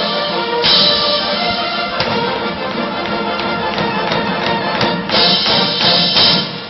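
Massed military band playing, brass instruments sounding over a drum beat.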